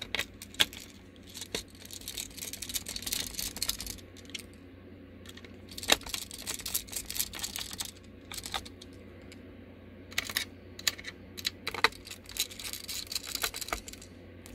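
Precision screwdriver driving the small hard-drive caddy screws back into a laptop: runs of light metallic clicks and scrapes in bursts, with a few sharper taps.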